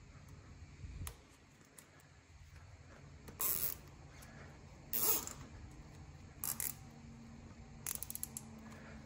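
Plastic zip tie being cinched tight, its teeth ratcheting through the locking head in four short zipping bursts.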